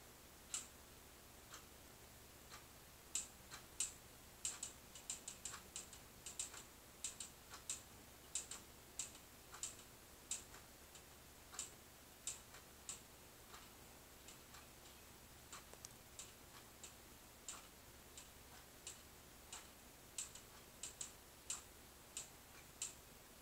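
Irregular short, sharp clicks over a quiet room with a low hum: scattered at first, about two to three a second from about three seconds in, sparser in the middle, then a closer run again near the end.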